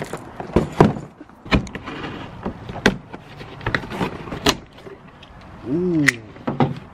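A utility knife slitting the packing tape on a cardboard mailing box, with irregular knocks, clicks and scrapes as the box and knife are handled. There is a brief pitched sound just before the end.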